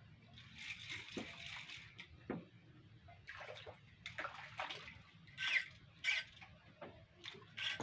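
Water splashing and sloshing in a series of irregular bursts, the sharpest three coming in the second half.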